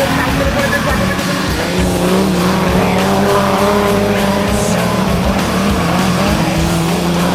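Stock Omega race cars' engines running hard at racing speed, their pitch rising and falling as they rev.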